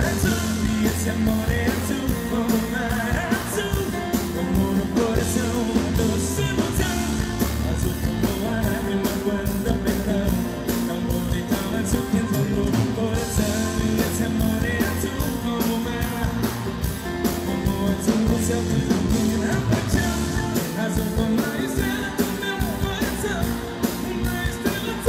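Live sertanejo music from the stage: male vocals over a band with a steady beat.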